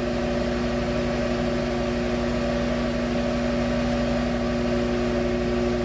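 Microwave oven running with a steady hum and a few constant tones while it heats a bar of soap.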